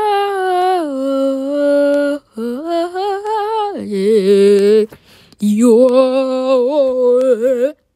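A single voice singing a slow wordless tune in long held notes with vibrato, in four phrases with short breaks between them.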